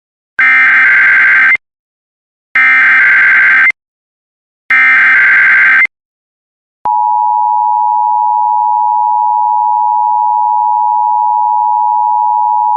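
Emergency Alert System test signal: three bursts of SAME digital header data, each a buzzy warble of about a second with a second's gap between. About a second after the last burst, the steady two-tone EAS attention signal (853 and 960 Hz) starts abruptly and holds.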